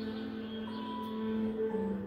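Background music with long held notes; the low note steps down near the end.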